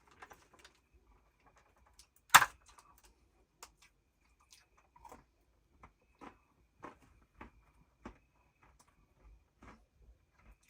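Crunchy food being chewed, small crunches about every half second, with one sharp knock about two seconds in.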